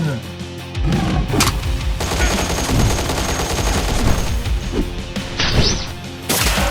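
Rapid gunfire sound effects over a trap-style background music track, with a loud burst near the end.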